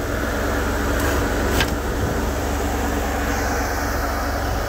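Mitsubishi 6G72 V6 engine idling steadily, with a single sharp click about a second and a half in.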